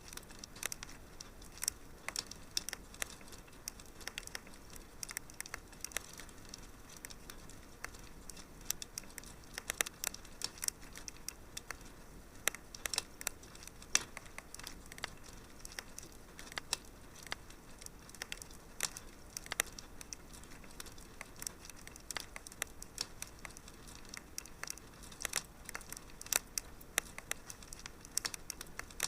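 Fireplace fire crackling: frequent, irregular sharp pops and snaps over a faint steady hiss.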